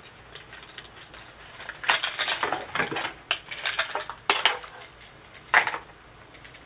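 A hard-bodied jerkbait lure being handled and worked out of its packaging: its metal treble hooks and blade clink and rattle in several bursts between about two and six seconds in.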